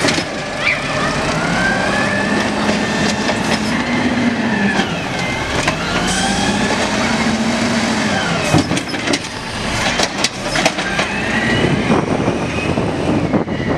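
Automated side-loader garbage truck working its arm to lift and empty a trash cart: the engine and hydraulics run with a pitch that rises and falls as the arm moves. A few knocks come about two-thirds of the way through as the cart is dumped and set back down.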